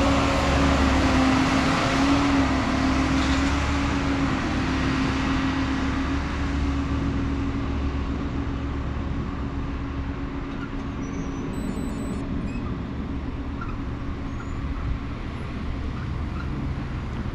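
A rail track-maintenance machine's engine running with a steady hum as it moves away down the track, fading over the first six or seven seconds. Road traffic at the crossing fills the rest.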